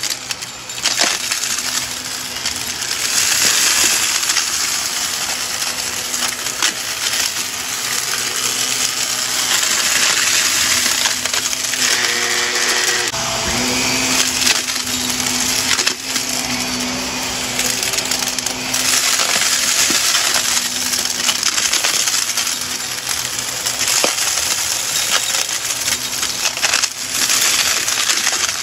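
Shark upright vacuum running on carpet, sucking up small hard beads, buttons and sequins that clatter and crackle continuously through the nozzle over the steady hum of the motor.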